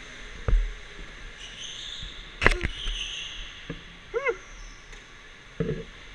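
Go-kart heard from onboard while cornering on an indoor track: a steady high hiss under several sharp knocks and rattles from the kart, and a brief squeal that rises and falls a little after four seconds in.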